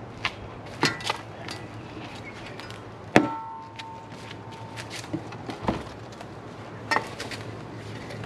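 Steel shovel blade being driven into packed dirt, with a series of sharp knocks and scrapes. About three seconds in, the blade hits something hard and gives a short metallic ring. This is the soil cover being dug off an underground oven (imu).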